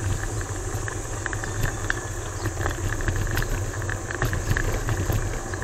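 Riding noise of a Kuickwheel S1-C Pro electric kick scooter, picked up by a camera mounted on the scooter: steady low wind rumble on the microphone, tyre and road noise, and small scattered rattles.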